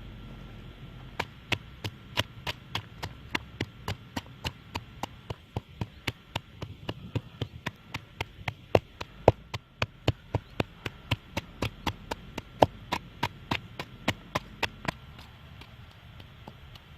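Blade chopping on a wooden surface, a steady run of sharp strokes about three a second, starting about a second in and stopping near the end.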